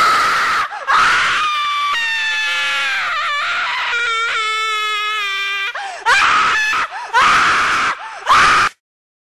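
Loud jump-scare screamer scream: one long shrill scream whose pitch wavers and slides, then three short shrieks, cutting off suddenly near the end.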